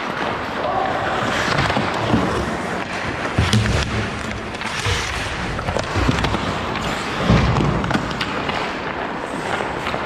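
Ice hockey play around the net: skate blades scraping and carving the ice, with many sharp clacks of sticks and puck and a few dull thumps.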